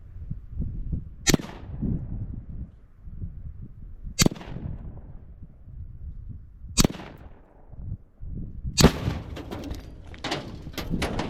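Three gunshots, each about two and a half seconds apart with a short fading echo, then about nine seconds in a Tannerite charge packed inside a clothes dryer detonates with a heavy low boom, followed by a string of sharp cracks. Wind rumbles on the microphone throughout.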